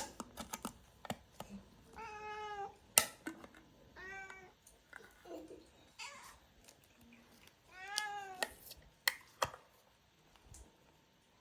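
Domestic cats meowing for food, three distinct meows a couple of seconds apart, impatient and hungry, with a few sharp clicks between them.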